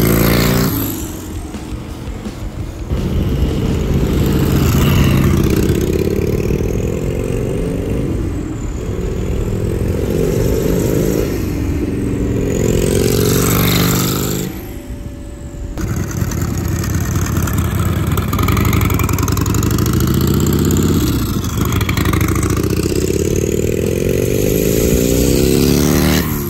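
Turbocharged Harley-Davidson 1200 V-twin motorcycle making a run of low-rpm pulls at about 5–6 psi of boost. The engine note rises in pitch with each pull and falls away between them, with short breaks where the clips change and a longer drop about fifteen seconds in. It is running a conservative fuel and timing tune and is held below 4,500 rpm.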